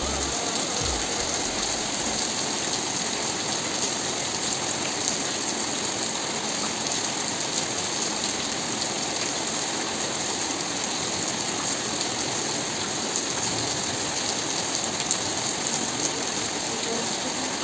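Rain falling steadily on a flooded concrete courtyard: an even, unbroken hiss of drops splashing on standing water and walls.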